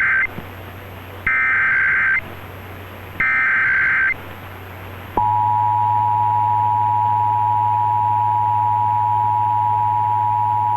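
Emergency Alert System SAME header data bursts: the end of one burst, then two more short buzzy bursts about a second apart. About five seconds in, the steady two-tone EAS attention signal starts, marking a Required Monthly Test heard over AM radio with a low hum underneath.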